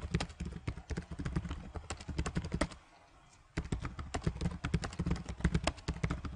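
Typing on a computer keyboard: a fast run of key clicks, a short pause about three seconds in, then more typing.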